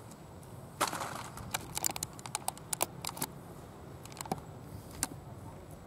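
A quick, irregular run of sharp little clicks, about a dozen, starting about a second in and ending about a second before the end, over a faint steady background.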